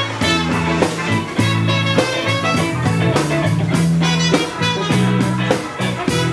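A live rock band playing on a parade float: a steady drum beat with electric guitar, bass and keyboard.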